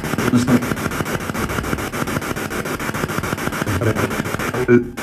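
Handheld spirit box sweeping radio frequencies: a hiss of static chopped into rapid, even pulses, with brief snatches of radio voice near the start and near the end.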